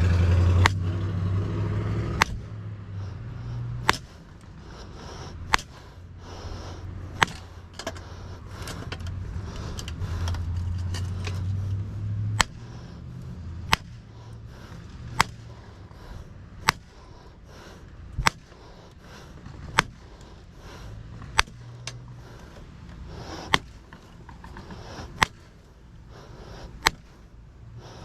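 Sharp metal-on-metal strikes at an even pace, about one every one and a half seconds, as an electric motor is hammered apart for its copper. A vehicle engine's low rumble is heard in the first couple of seconds and returns briefly near the middle.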